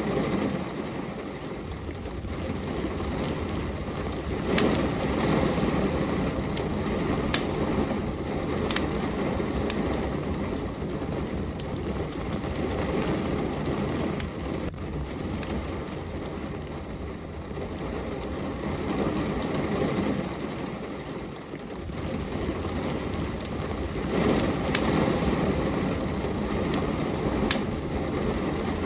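Steady rain, swelling and easing in long waves, with a log fire crackling: a few sharp pops scattered through it.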